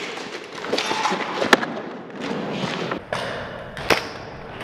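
Scattered sharp knocks over shuffling handling noise, the loudest about one and a half seconds in and again near four seconds in. A low rumble comes in from about three seconds.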